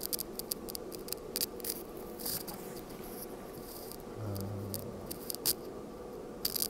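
A small cardboard product box handled and turned over in the hands: scattered light scrapes, rubs and taps of fingers on the cardboard, with a sharper tap about five and a half seconds in.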